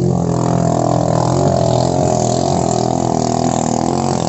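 Motorized outrigger boat's engine running steadily at high speed as the boat races across the water.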